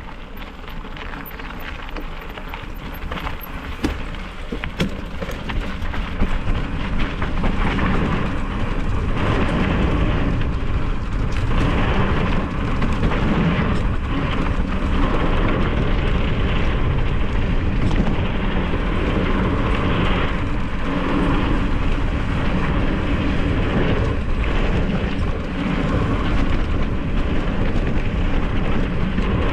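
Wind buffeting a moving mountain bike camera's microphone, mixed with the rumble and rattle of the bike on a dirt trail. It builds over the first six or seven seconds as speed picks up, then stays loud and steady.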